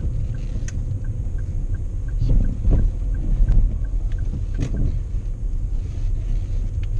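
Daihatsu Sonica kei car heard from inside the cabin while driving on a wet road: a steady low rumble of engine and tyres, with a few heavier low thuds in the middle. Over it the turn-signal indicator ticks about three times a second and stops about five seconds in.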